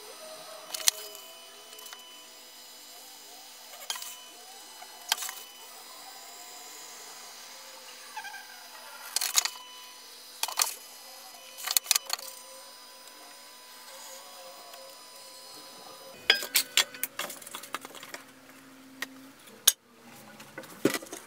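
Foam block pushed through a hot-wire foam cutter: a faint steady hum, the foam squeaking as it slides over the wooden base, and scattered sharp knocks as the cut pieces are handled and set down.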